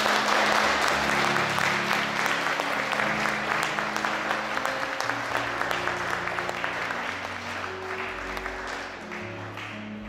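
A congregation clapping and applauding over instrumental music with long held low notes. The applause breaks out at once, then slowly dies down.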